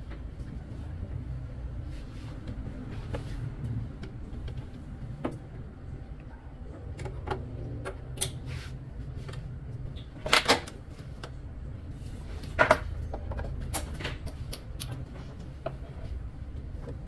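XLR cable connectors being pushed into the rear input sockets of rack-mount power amplifiers, giving scattered small clicks and knocks, the loudest two about ten and twelve and a half seconds in, over a steady low rumble.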